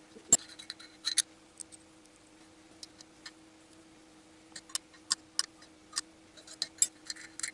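Irregular metallic clicks and taps as steel studs are threaded into a VAZ-2111 8-valve cylinder head with a wrench: a few in the first second, then a quicker run in the second half.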